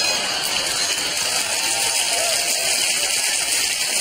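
Studio audience applauding, a steady even patter.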